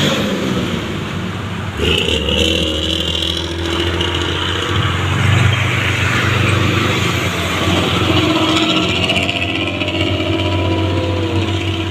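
Bus diesel engine running close by, a deep steady drone that comes in suddenly about two seconds in, with a brief high hiss just after.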